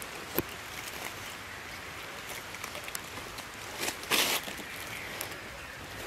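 Footsteps crunching and rustling through dry leaf litter, with a sharp click just after the start and one loud crunch about four seconds in, over a steady background hiss.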